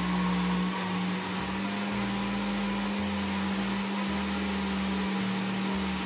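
Countertop blender running at a steady speed, a constant motor hum over a whirring rush, as it blends a liquid pancake batter of eggs, milk, flour and oil.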